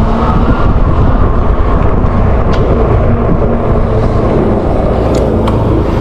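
Wind rumbling on the microphone and road noise from a folding fat-tyre electric bike riding at low speed, with a faint steady electric-motor whine underneath and a few light clicks near the end.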